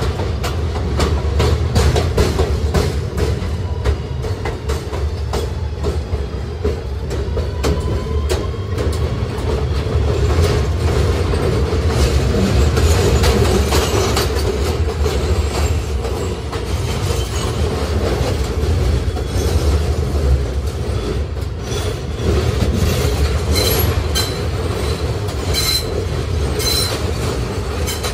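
Kawasaki R211A subway car running along the track: a steady low rumble of wheels on rail with repeated clicks from rail joints. High-pitched wheel squeal comes in several times near the end.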